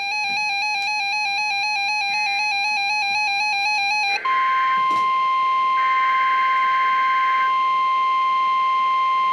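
An electronic tone warbles rapidly between two close pitches. About four seconds in it gives way to a steady NOAA Weather Radio alert tone near 1050 Hz, the attention signal that comes before the broadcast of an alert. Two short buzzy bursts sound over the steady tone.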